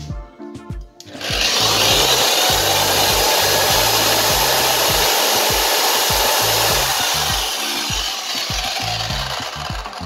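Zenit ZTS-1800 electric string trimmer switched on about a second in and running at full speed, a steady whirr of motor and spinning head, a little quieter in the last few seconds. The trimmer runs again, no longer just humming without turning, after its cracked front support and armature bearing were replaced.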